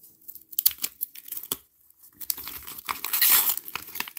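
Waxed-paper wrapper of a baseball-card pack being torn open and crinkled by hand. Scattered sharp crackles come first, then a longer, louder stretch of tearing and rustling in the second half.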